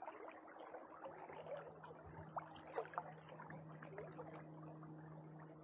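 River current flowing and gurgling, with a few sharp clicks or small splashes between about two and three seconds in. A faint steady low hum comes in about a second in.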